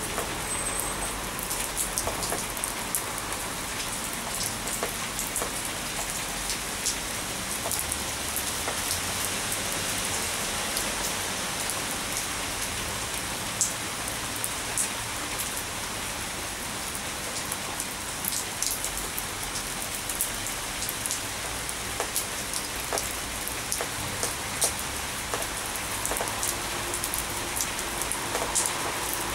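Steady rain falling on wet paving and into a stainless steel bowl of water: an even hiss scattered with many sharp ticks of single drops.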